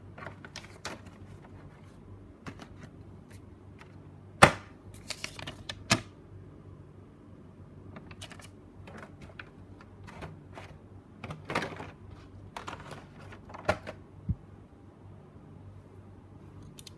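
Hands handling a paper instruction sheet and small plastic model parts: scattered clicks, taps and rustles in bunches, the loudest a sharp tap about four and a half seconds in.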